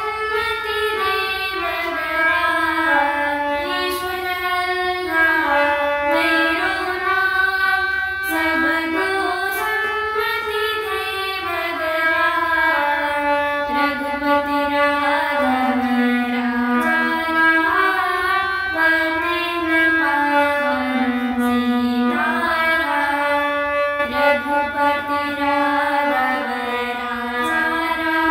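A girl singing a Hindi devotional bhajan to her own harmonium accompaniment. The harmonium's reeds sound the melody in held notes that step up and down, unbroken, with her voice over them.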